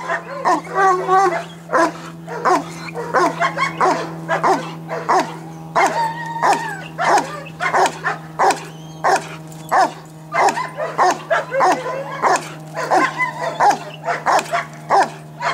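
German Shepherd barking in a rapid, unbroken string, about two to three barks a second, some with a high yelping edge. This is agitation barking at a helper during protection training.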